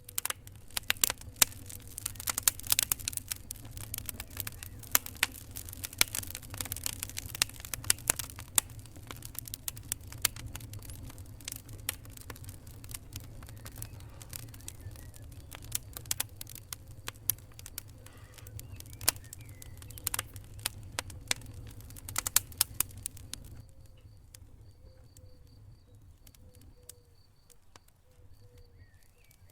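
Fire crackling: dense, irregular sharp pops and snaps over a steady low rumble. The crackling thins out to a few soft ticks in the last several seconds.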